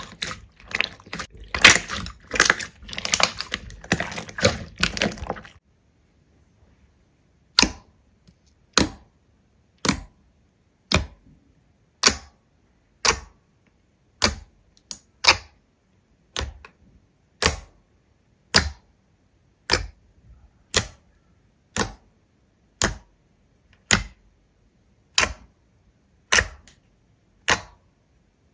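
Slime being squished and worked by hand, a dense run of crackling and popping clicks that stops after about five seconds. After a short pause come single sharp clicks, evenly spaced about once a second.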